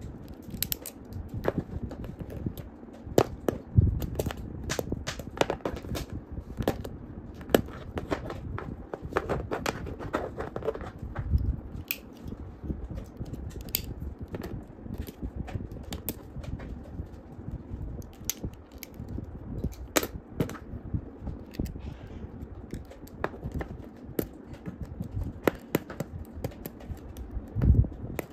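A scalpel blade scraping and shaving the plastic collar of an action figure: irregular sharp clicks and scratches, with a few dull thumps from handling the figure.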